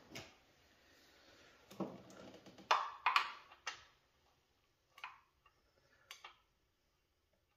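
Scattered clicks and light knocks of hand tools and metal fittings being handled on a snowmobile engine, with a cluster of sharper knocks about three seconds in.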